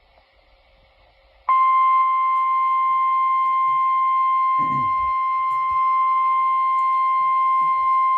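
Near silence, then about a second and a half in the Emergency Alert System attention tone starts abruptly: a loud, steady single electronic tone of about 1 kHz that holds unbroken, the alarm that precedes a broadcast weather warning.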